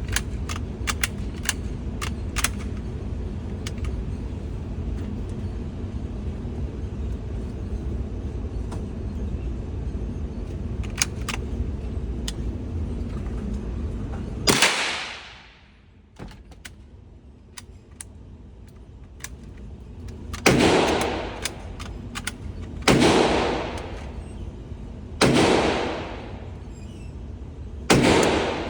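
.22 LR bolt-action rifle fired five times, the first shot about halfway through and the rest roughly two and a half seconds apart, each a sharp crack with a short ringing tail. Before the first shot there is a steady low rumble with a few scattered clicks.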